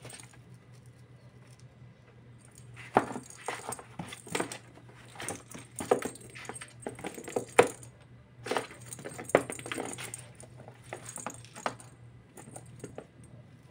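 A kitten batting a perforated plastic cat-toy ball around a cardboard box: the ball jingles and knocks against the cardboard in irregular clusters of taps and jingles, starting about three seconds in.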